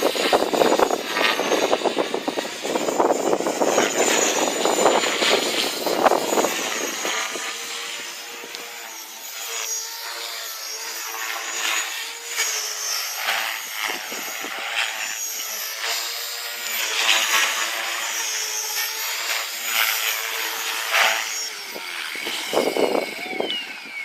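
Strong wind rushing over the microphone in flight, gusting heavily at first and then easing, with a wavering pitched hum through the middle stretch.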